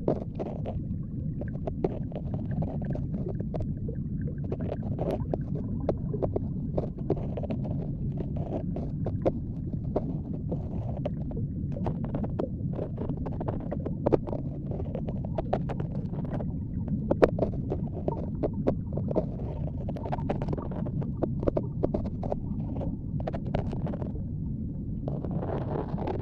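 Ear-cleaning ASMR: a tool rubbing and scraping close on the microphone, giving a continuous muffled rumble with many small crackles and clicks all through.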